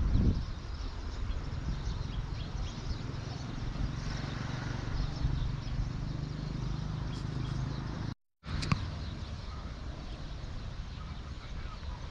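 Steady outdoor noise, mostly a low rumble, from a bridge over a fast-flowing flooded river, likely wind on the microphone over rushing floodwater. It cuts out for a moment about eight seconds in.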